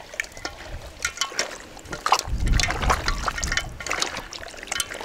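Wet squelching and slapping of hands kneading quail pieces in a thick red marinade in an enamel bowl, many short squishes, with a low rumble for about a second in the middle.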